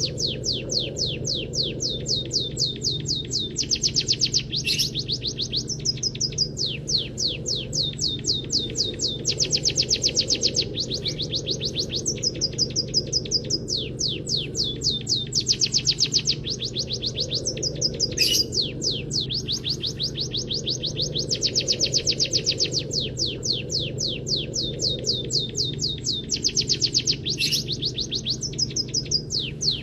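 A munia singing a learned canary-style song: long phrases of fast, evenly repeated high chirps, several a second, changing pattern every few seconds, over a steady low hum.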